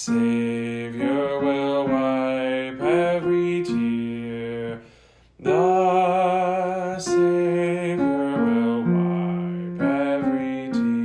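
Hymn music in parts: a voice wavering with vibrato over held lower notes, sung without clear words, with a short break about five seconds in before the final chords.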